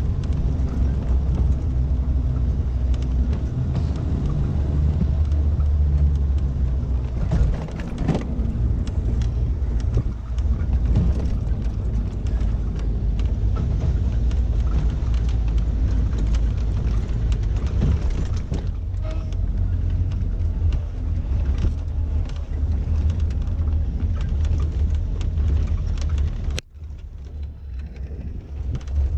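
1988 Suzuki SJ413 Samurai on the move, its 1.3-litre four-cylinder engine running with a steady low rumble and frequent clicks and knocks over it. Near the end the sound drops suddenly and goes on quieter.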